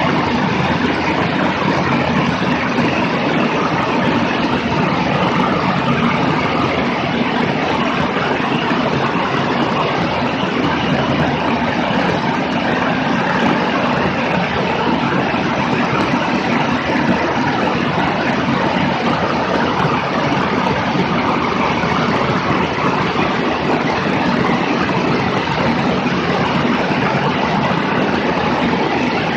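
High-wing single-engine light airplane in cruise flight, heard from outside on the wing: a steady engine and propeller drone under a heavy, even rush of airflow over the microphone.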